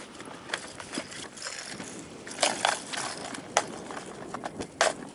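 A series of short, sharp knocks and clicks over a faint background noise. The loudest are a pair about two and a half seconds in, one near three and a half seconds and one near five seconds.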